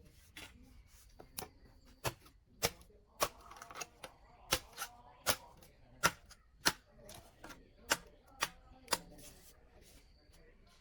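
Series of sharp chopping or knocking strikes, about one to two a second and unevenly spaced.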